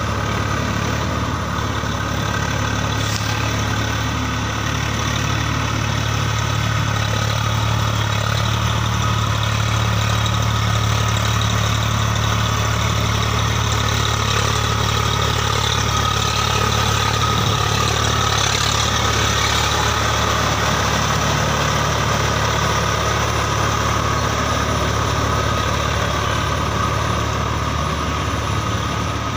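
Swaraj 855 FE tractor's three-cylinder diesel engine running steadily under load while driving a Shaktiman rotavator through wet mud.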